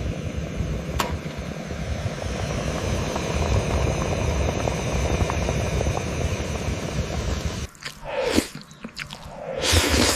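Eating sounds of chewing and crunching food over a dense, steady noise. The noise drops out about eight seconds in, and two short sweeping sounds follow near the end.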